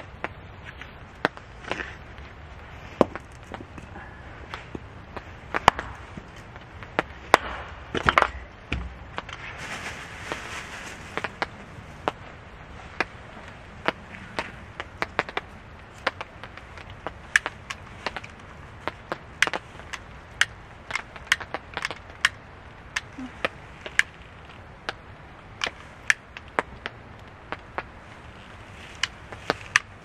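Hatchet chopping and splitting wooden boards into kindling: irregular sharp knocks of the blade striking wood, about one or two a second, with a longer rustle about ten seconds in.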